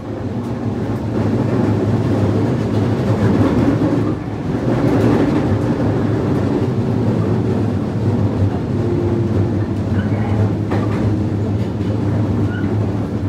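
Cabin noise of a JR West 221 series electric train's motor car running along the line: a steady rumble of wheels and running gear.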